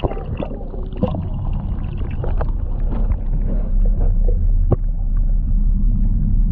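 Low, steady underwater rumble in a boat's bait well, muffled as heard from below the water surface, with scattered clicks and knocks.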